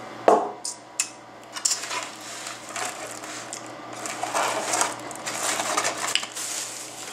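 Foam takeout clamshell boxes being handled and shut: a few sharp clicks and knocks in the first two seconds, then scraping and rustling.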